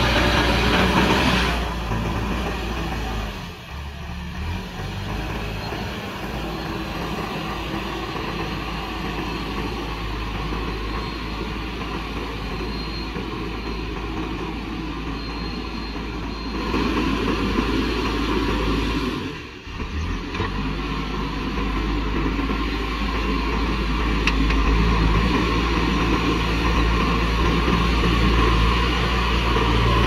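JCB backhoe loader's diesel engine running steadily as the machine pushes soil with its front bucket. The sound drops sharply twice, about three seconds in and near the twenty-second mark, and is quieter between the two drops.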